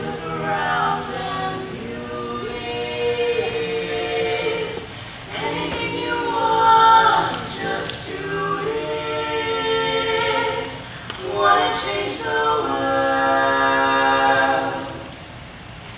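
Women's barbershop quartet singing a cappella in four-part close harmony, moving through held chords; a long sustained chord near the end, after which the level drops.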